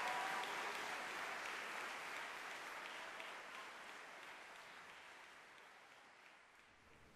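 Concert-hall audience applauding, the clapping dying away steadily.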